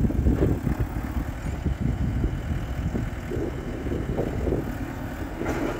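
Farm tractor engine idling, mixed with wind buffeting the microphone. A short rustle comes near the end.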